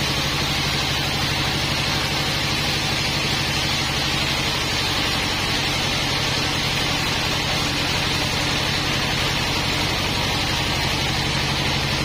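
Sawmill running steadily: an engine drone with a constant high hiss over it, unchanging throughout.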